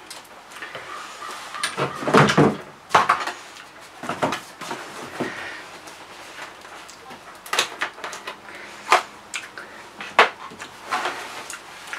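Scattered knocks and clicks of hands at work around a stopped marine diesel engine: the dipstick going back in, and a plastic jug of engine oil picked up and set down ready for topping up.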